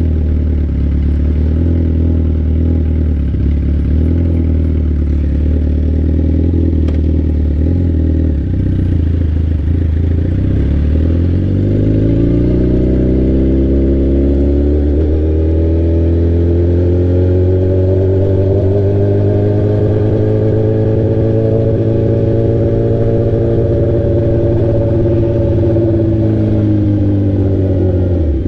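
Straight-piped sport bike engine under way: it runs at low, steady revs for about the first ten seconds, then climbs in pitch over several seconds as the bike accelerates. It holds there, eases slightly, and drops sharply at the very end.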